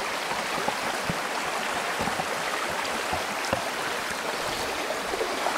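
Narrow creek running pretty quickly over rocks and riffles, a steady rush of water.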